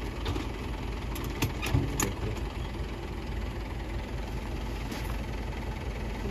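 Tractor engine idling steadily, with a few short clicks and knocks about one to two seconds in and once more near the end as a sack of wheat seed is handled over the seed drill.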